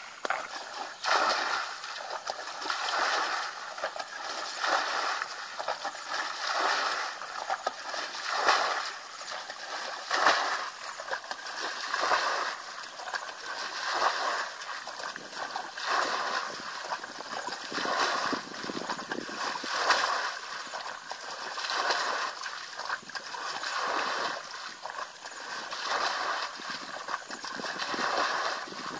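Muddy water being bailed from a pool with a bucket. Each scoop is flung over a mud bank with a splash, about one every two seconds.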